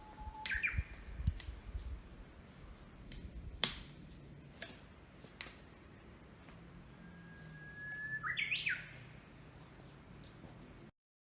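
Songbirds singing in a forest: a short call about half a second in, then near the end a long steady whistle that breaks into a quick flourish of rising notes. Wind rumbles on the microphone at the start, with a few sharp clicks, the loudest about four seconds in.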